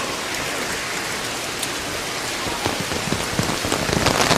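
Steady rain falling, with a few sharper drops striking in the middle and the rain growing louder near the end.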